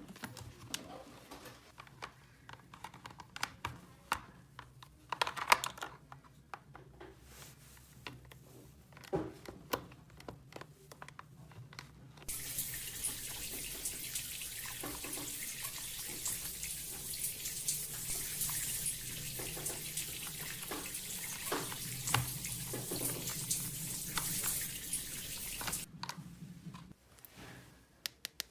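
Small plastic clicks and taps of toys being handled, then, about twelve seconds in, a steady stream of running water that starts suddenly and cuts off suddenly near the end.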